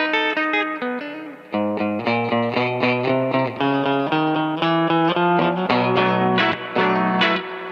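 Fender Coronado II electric guitar played through a Keeley Compressor Plus pedal, picking a run of single notes and chords whose notes ring on. It bends a note at the start, dips briefly about a second in, then comes back in with a quick string of notes over a low line.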